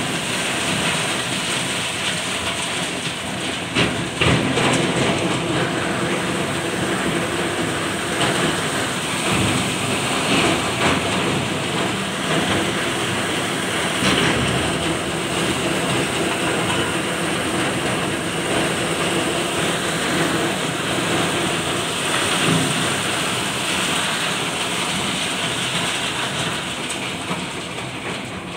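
Crushed ice rushing out of a large pipe into a fishing boat's hold: a loud, steady rattling rush with a faint low hum underneath, and a few brief louder bursts.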